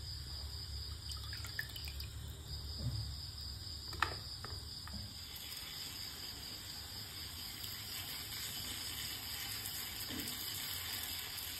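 Faint kitchen handling sounds: a brief splash of water as a hand rubs inside a wet pan at the start, and a light knock about four seconds in. A steady high-pitched whine and a low hum run underneath.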